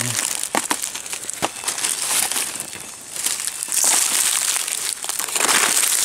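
Dry leaf litter crackling and rustling as someone steps and moves through it, with a few sharp clicks in the first second and a half.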